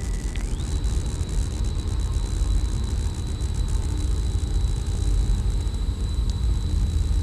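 Dense, steady rumbling noise drone with a thin, high-pitched steady tone over it that jumps up an octave about half a second in.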